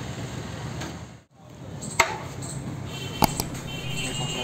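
Steady low background hum of a busy eatery. It drops out for a moment a little over a second in, then two sharp clicks or knocks sound, about a second apart, in the second half.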